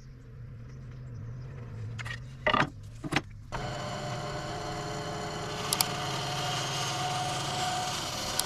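Bandsaw running: a steady low hum, two or three sharp knocks about two and a half to three seconds in, then from about three and a half seconds a louder, fuller machine noise.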